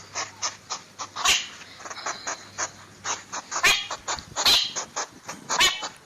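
An animal making quick, short, repeated cries, several a second, with a few louder ones among them.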